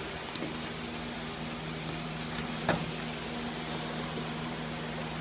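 Steady low hum over an even hiss, broken by two short knocks from gloved sparring, the louder one about two and a half seconds in.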